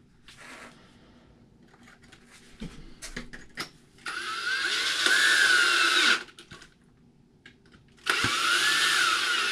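Cordless power driver spinning in two bursts of about two seconds each, its whine rising and falling in pitch as it drives the shorter button-head screws into the motor mount. A few light clicks of parts being handled come first.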